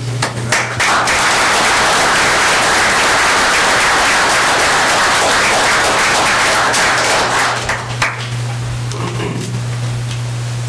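Audience applauding: a few scattered claps that swell within a second into steady applause, lasting about seven seconds before dying away.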